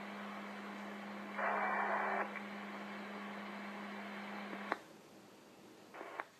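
Two-way radio transmission: thin static hiss over a steady hum, with a louder rush of hiss about a second and a half in. It cuts off with a click a little before five seconds in, and a brief squelch burst and click follow near the end.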